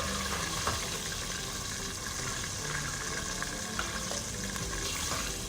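Breaded chicken drumsticks deep-frying in hot vegetable oil: a steady sizzle with scattered crackles.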